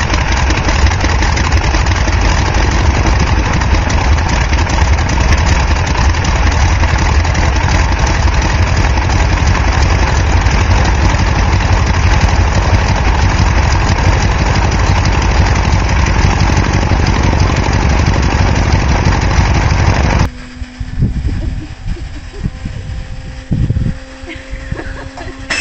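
Radial aircraft engine running loudly and steadily with a rapid, rough beat. About 20 seconds in it cuts off abruptly to a much quieter steady hum with a couple of knocks.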